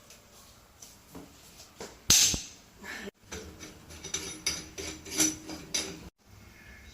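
A series of light clicks and knocks, like objects or tools being handled, with a louder short noisy burst about two seconds in.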